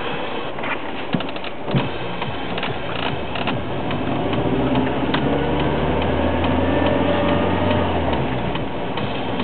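Vehicle engine pulling away from a junction and speeding up, heard from inside the vehicle. Its note rises slowly over the last few seconds. Irregular clicks and knocks come during the first three seconds, the loudest about one and two seconds in.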